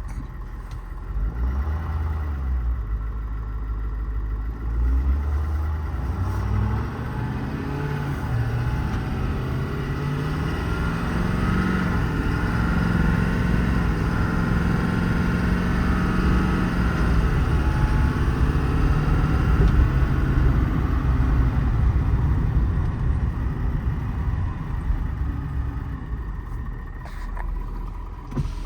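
Ford 6.7 Power Stroke V8 turbo-diesel of an F-550, heard from inside the cab, pulling away and accelerating: its pitch climbs in steps as the transmission shifts up, then holds steady at cruising speed and eases off near the end, over road noise.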